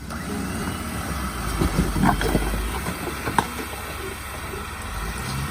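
Off-road vehicle engine running under load while it crawls over an obstacle, with a few sharp knocks about two seconds and three and a half seconds in.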